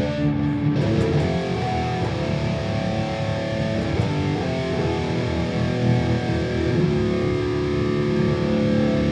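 Electric guitar played through a Boss Katana Gen 3 212 combo amp: a run of changing notes, then a note held and ringing from about two-thirds of the way in. The amp's contour setting is dialled so that it "really scoops" the tone.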